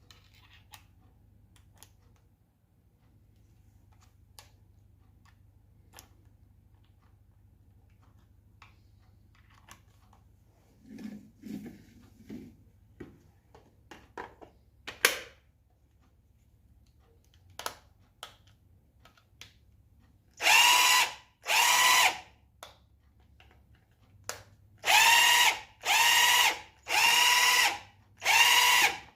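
DeWalt DC825 18 V cordless impact driver run free in six short bursts of about a second each, two and then four more after a brief pause, its motor and gears giving a high whine. This is a test run after cleaning and re-greasing.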